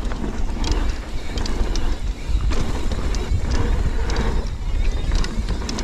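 Mountain bike rolling down a trail: wind rumbling on the microphone, with scattered sharp clicks and rattles from the bike over the ground.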